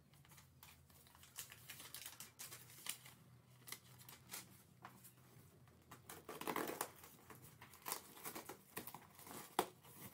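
Packing tape on a cardboard carton being slit with a box cutter, amid handling of paper and cardboard: scattered small clicks and crinkles, with a longer tearing sound about two-thirds of the way through.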